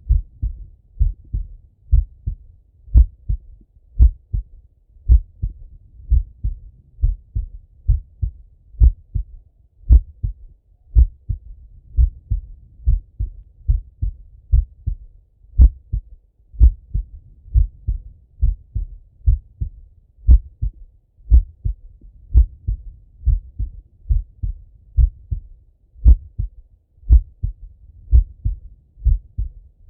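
A man's slow heartbeat heard through a stethoscope on the chest: steady paired lub-dub thumps, about one beat a second.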